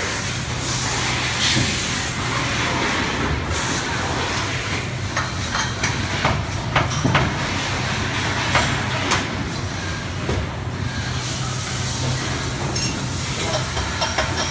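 Steady hiss and low hum of workshop machinery, with scattered light clicks.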